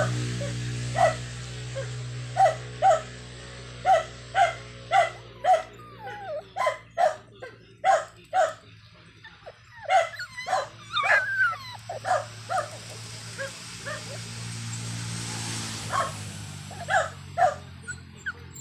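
Dog yipping in short, evenly spaced barks, about two a second, with some wavering whimpers around the middle, over a steady low hum.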